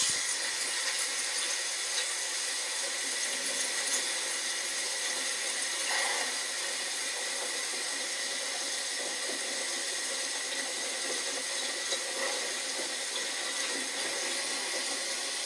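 Steady hiss of rain or running water on a film soundtrack, heard through a TV's speakers and picked up by a phone.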